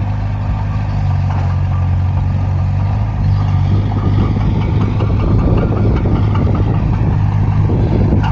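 Heavy vehicle engine idling with a steady low hum, joined by more rattle and clatter from about three seconds in.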